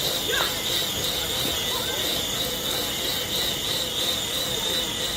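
Bicycle tyre spinning on a roller trainer's Tacx rollers: a steady high-pitched whine over rolling noise, wavering slightly and regularly as it turns.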